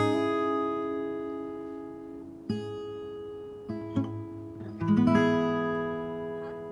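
Background music on acoustic guitar: three chords strummed about every two and a half seconds, each left to ring and fade, with a couple of single plucked notes between the second and third.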